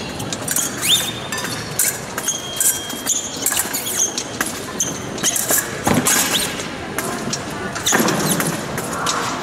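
Épée fencers' footwork on the piste: shoes squeaking and stamping, with many short sharp clicks and a louder scuffle about 8 seconds in.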